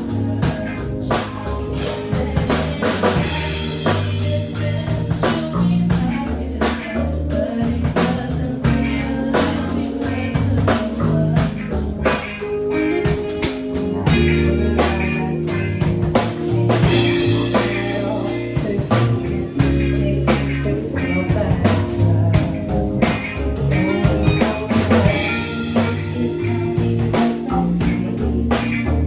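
Band music with a steady drum-kit beat, bass and guitar, and a singing voice.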